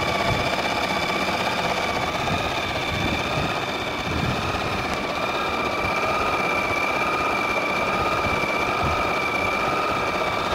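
Janome 6000 electric sewing machine running steadily while stitching a decorative design: a continuous motor whine over a mechanical rattle.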